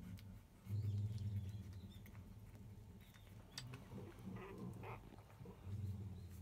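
Faint low grunts and a few small squeaks from five-day-old Labrador retriever puppies sleeping in a litter.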